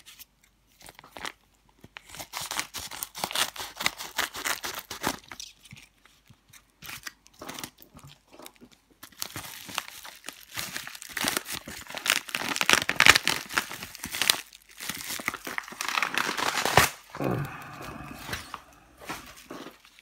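Paper and parcel tape being ripped and crinkled by hand as a heavily taped mailing envelope is torn open. The irregular crackling and tearing comes in spells and is loudest in the second half, with a sharp rip near the end.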